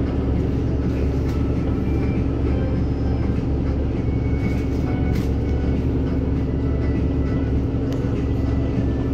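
NefAZ-5299-40-52 city bus driving, heard from inside the cabin: a steady engine drone and road noise, with a constant low hum.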